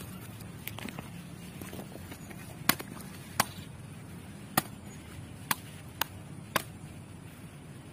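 A machete chopping into the top of a husk-trimmed young coconut to open it: about six sharp, separate strikes at an uneven pace.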